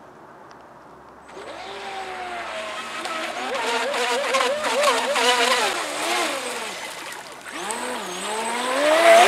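Brushless electric motor of a Fei Lin FT012 RC racing boat whining as the boat runs, its pitch rising and falling with the throttle. It comes in about a second in, drops away briefly near the seven-second mark and climbs again near the end.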